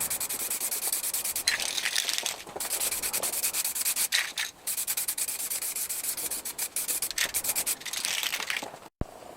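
Aerosol rattle can of etch primer spraying: a hiss in passes, broken by short gaps between them.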